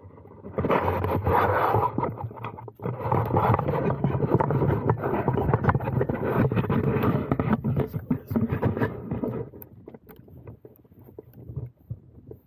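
Rough, uneven rustling and scraping on the action camera's microphone, the kind of wind and handling noise a camera picks up in a snowstorm. The noise is loud and then drops away about nine and a half seconds in.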